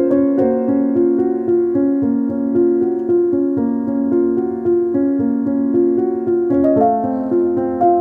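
Background music on a piano-like keyboard: a melody of held notes, moving to higher notes about two-thirds of the way through.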